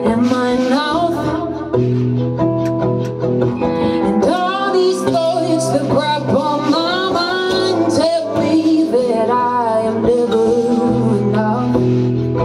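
A woman singing lead over a strummed acoustic guitar and held keyboard chords, with a man's voice joining in on backing vocals.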